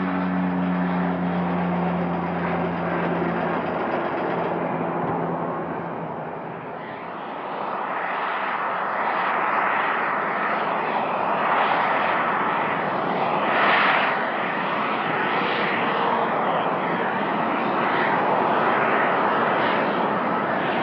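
Boeing 777F freighter's twin GE90 jet engines running as it taxis: a broad rushing jet noise swells after the first several seconds and pulses, loudest about two-thirds of the way through.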